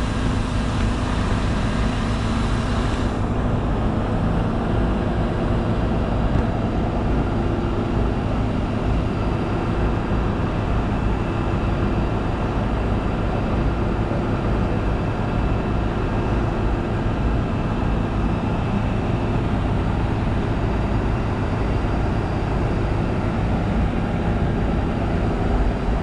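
The diesel engine of a Zoomlion 70-meter truck-mounted concrete pump running steadily, powering the hydraulics that unfold the boom.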